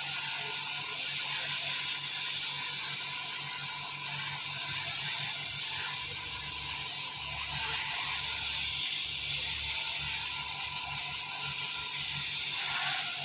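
Electric arc welding: the arc gives a steady hiss, broken for a moment about seven seconds in.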